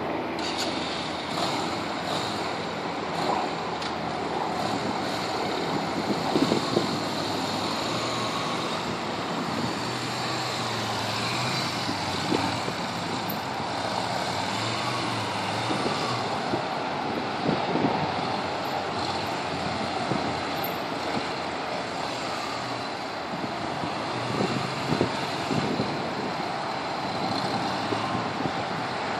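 Yamaha V-Star 250's small V-twin engine running at low speed, mixed with wind on the microphone that gusts now and then.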